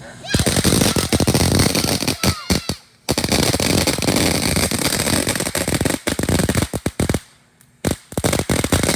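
Consumer fireworks going off in a rapid, dense string of bangs and crackles. It starts a moment in and has two short breaks, one about three seconds in and one near the end.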